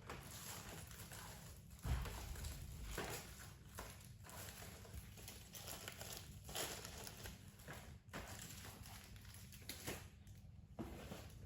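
Faint, irregular rustling and light taps of packaging being handled during an unboxing, with one firmer knock about two seconds in.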